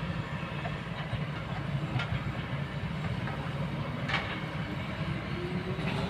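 Kobelco excavator's diesel engine running steadily, with three sharp knocks about two seconds apart and a faint rising whine near the end.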